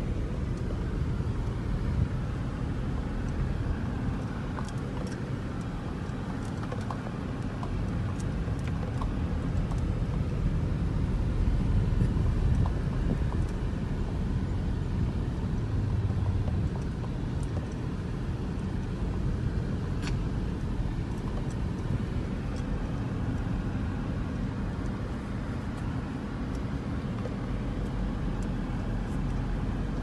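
Car driving on a street, heard from inside the cabin: a steady low rumble of engine and road noise.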